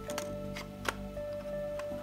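Background music of held electronic notes, with three or four sharp clicks from the plastic Tri-ang Hornby EM2 model locomotive being handled over the track, the loudest just under a second in.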